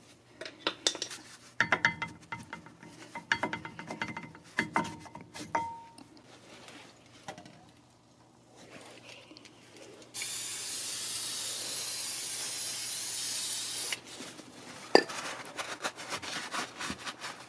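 Old brake pads and a screwdriver clinking and ringing against a metal AMG front brake caliper as the pads are pried out. About ten seconds in, an aerosol can of brake cleaner sprays the caliper in one steady hiss lasting about four seconds. A sharp click follows, then a paper towel rubbing the caliper clean.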